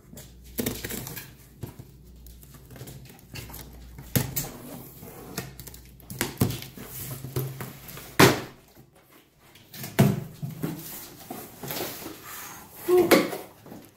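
Packing tape being sliced and pulled off a cardboard shipping box, then the cardboard flaps pulled open: irregular scraping and rustling with a few sharp cardboard knocks, the loudest about eight and ten seconds in.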